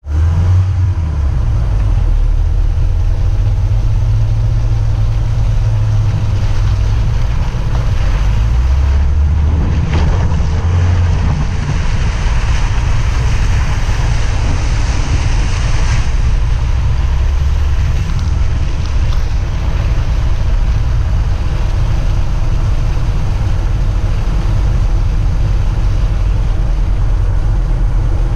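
Car engine running steadily with a deep low drone while driving off-road, with a stretch of louder hissing road noise from about twelve to sixteen seconds in.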